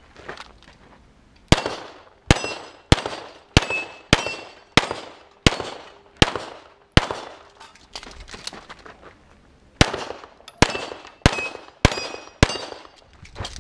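Pistol shots fired in quick succession at steel targets, about one every two-thirds of a second: a string of about nine, a pause of nearly three seconds, then about six more. Some shots are followed by the brief ring of a struck steel plate.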